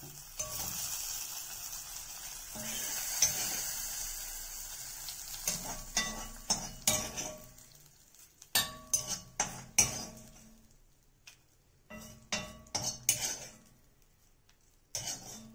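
Tempering of mustard seeds, shallots, dried chillies and curry leaves in hot coconut oil sizzling for the first few seconds, then a metal spoon clinking and scraping against the pan many times in quick succession, with a few more clinks later.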